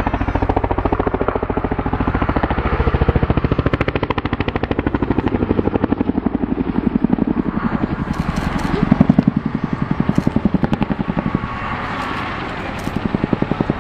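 Boeing CH-47 Chinook tandem-rotor helicopter in display flight, its rotor blades chopping in a rapid, steady rhythm over a low engine drone. The chop swells about two-thirds of the way through and eases briefly near the end.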